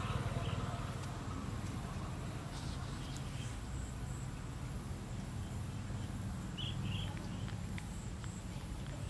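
Outdoor ambience: a steady high insect drone over a low rumble, with two short high chirps about two-thirds of the way through.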